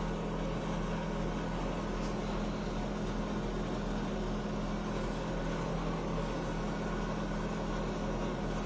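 Steady mechanical hum with an even hiss behind it, unchanging throughout.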